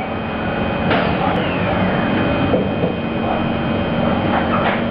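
Singapore MRT train's doors sliding shut, with a falling whir and a few knocks as they close. The train's motors then set in with a steady low hum as it starts to move.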